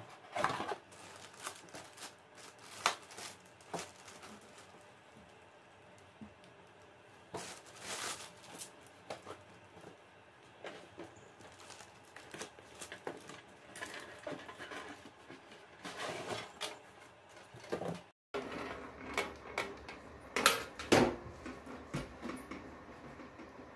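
Hands handling cardboard toy boxes and small toys: scattered light taps, knocks and rustles, closer together in the last few seconds.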